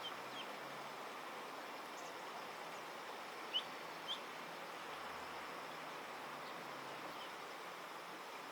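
A few short, high, rising chirps from a bird, the loudest pair about three and a half and four seconds in, over a steady outdoor background hiss.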